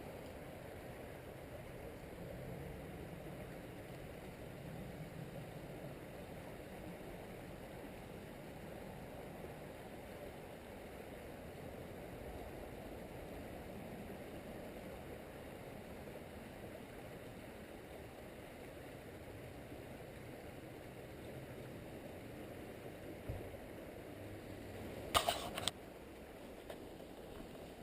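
Steady low rushing outdoor background noise, with a small sharp knock about 23 seconds in and a louder brief clatter of sharp clicks a couple of seconds later.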